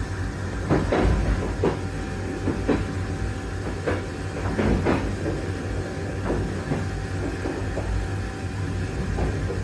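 Running noise inside a moving passenger train coach: a steady low rumble with irregular knocks and rattles from the car body and track.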